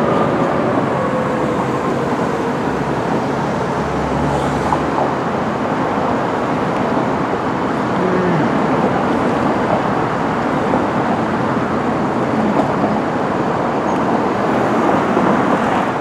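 Steady road traffic noise, with a siren's tone sliding down in pitch and fading out in the first second or two.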